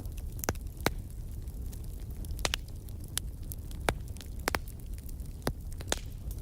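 Wood fire burning in a fireplace: about ten sharp pops and snaps at irregular intervals over a steady low rumble.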